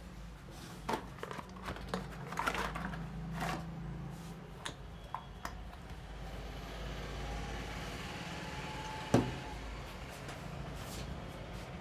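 Hands working over a head during a massage: soft rubbing with scattered light taps and clicks, and one sharp click about nine seconds in.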